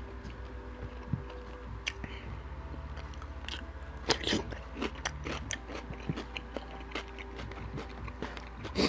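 Close-miked chewing of a mouthful of food, with scattered wet mouth clicks and smacks, busiest about four seconds in, over a steady low hum.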